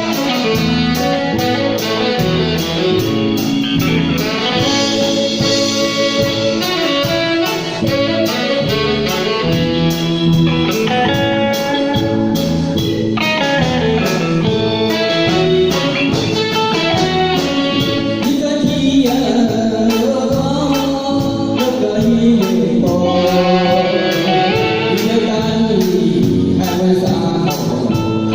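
Music with a singing voice and guitar over a steady beat.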